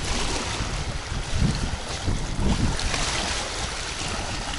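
Wind gusting across the microphone over choppy water, with small waves lapping.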